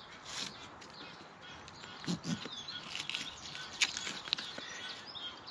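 Nylon webbing compression strap being worked through a D-ring and ladder-lock buckle: faint rustling with a couple of sharp clicks about two-thirds of the way in. Birds chirp in the background.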